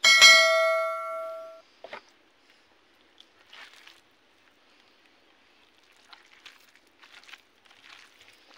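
Subscribe-button sound effect: a bright ding of several tones at once, ringing about a second and a half before it fades, with a short click just after. Then only faint, scattered soft sounds of rice being mixed by hand.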